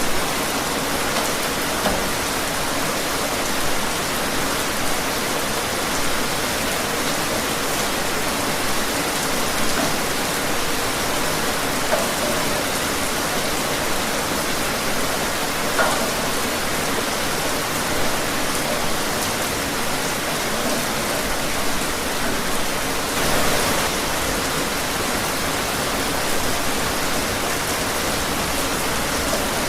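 Steady rain falling on surfaces outdoors, an even hiss of many drops with the odd louder drip now and then.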